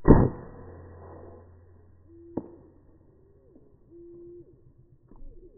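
A single shot from a .22 Diana Outlaw (Artemis M16) PCP air rifle: a sharp report that dies away over about a second. A sharp click follows about two and a half seconds in, and doves coo briefly twice, each coo a short steady note.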